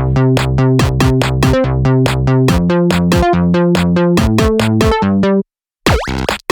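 Electronic background music: synthesizer chords over a steady drum-machine beat. It cuts off suddenly about five seconds in and picks up again after a short gap.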